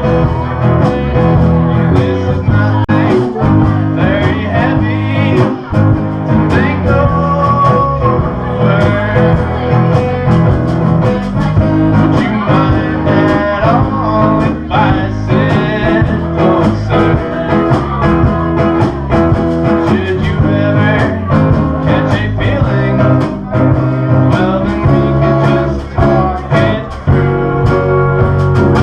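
Guitar-led song in a bluesy style: a guitar played in a steady, even rhythm, with a singing voice over it.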